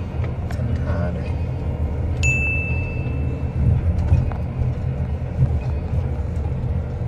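Steady low rumble of a moving vehicle and wind on the microphone. About two seconds in comes a single bright ding, a clear ringing tone that fades within about a second.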